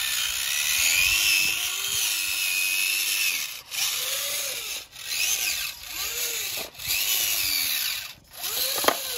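The small electric drive motor of a model New Holland 3630 tractor whines as the tractor drives through sand. Its pitch swells and falls repeatedly in the second half as the motor speeds up and slows.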